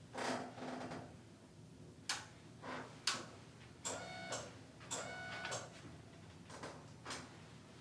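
Massage strokes: hands rubbing and pressing over skin and clothing on a treatment table, in a series of short, irregular swishes, two of them with a brief squeak.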